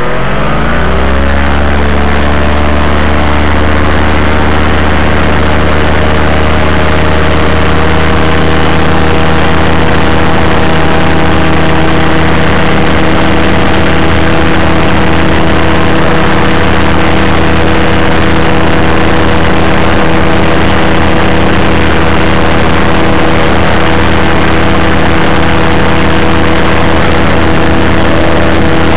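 Ultralight aircraft engine running close to the microphone: its pitch drops in the first second or two, then holds at a steady speed.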